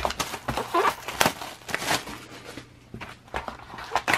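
Plastic shrink wrap being torn and crinkled off a cardboard trading-card box, in an uneven run of crackles and rustles with a few sharp snaps.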